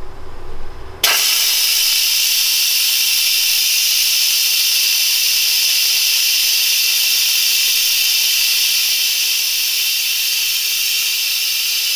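Instant Pot electric pressure cooker venting steam through its pressure-release valve, releasing the pressure after the cooking cycle. A loud, steady hiss starts suddenly about a second in.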